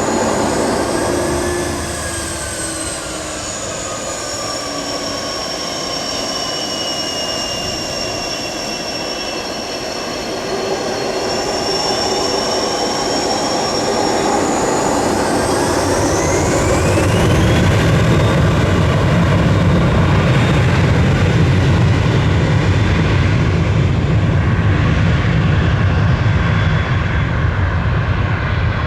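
Cessna 680 Citation Sovereign business jet's twin Pratt & Whitney Canada PW306C turbofans whining at low power, then spooling up with a rising whine a little past halfway into a loud, steady deep roar of takeoff thrust. The high whine dims near the end while the roar holds.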